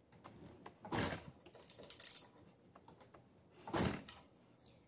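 Short metallic clinks and rattles from hands working on a dirt bike's rear wheel and brake parts, in three brief bursts.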